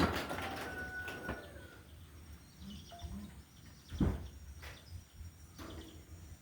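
Scattered knocks and clinks from handling an electric hand planer and its blades. The loudest knocks come at the very start and about four seconds in, and a short metallic ring follows the first one. Faint birds chirp in the background.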